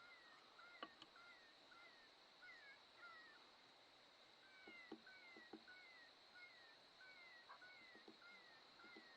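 Faint, repeated short falling squeaks, about two a second, like an animal's distress call, over a steady high-pitched whine.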